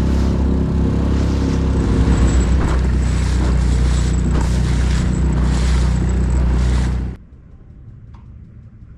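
A boat's motor runs loudly and steadily close by, then cuts off abruptly about seven seconds in, leaving only faint background noise.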